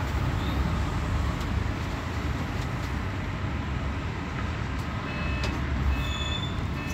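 Engine and road rumble heard from inside a moving bus, steady throughout. Near the end, a few short high beeps.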